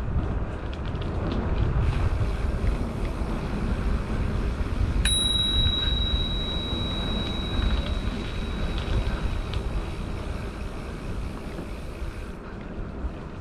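A bicycle bell rung once about five seconds in: a single bright ding that rings on and fades over a few seconds. Beneath it is the steady rumble of wind and tyres from a Diamondback Haanjo gravel bike ridden along a paved and gravel trail.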